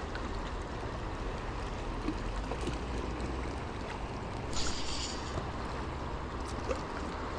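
Steady rush of river water with wind rumble on the microphone, and a brief hiss about four and a half seconds in.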